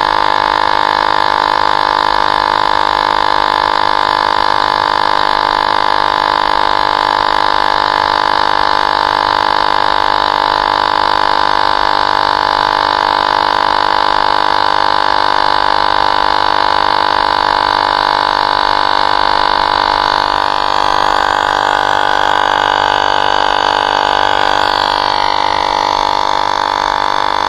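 Portable electric tyre inflator running steadily with a constant whine, pumping air into an e-bike tyre through the valve. Its upper tones shift slightly about twenty seconds in.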